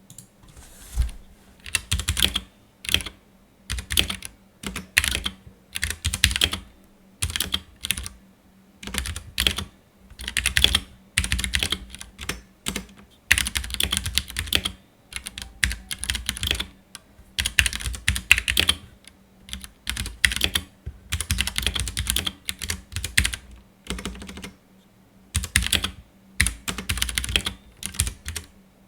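Typing on a Ducky One 2 Mini mechanical keyboard with Cherry MX Brown tactile switches: rapid keystroke clacks in bursts of a second or two with short pauses between.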